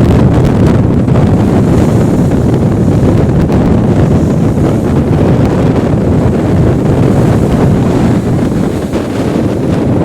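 Strong storm wind buffeting the microphone in a loud, steady low rumble, with surf from the stormy sea mixed in beneath it.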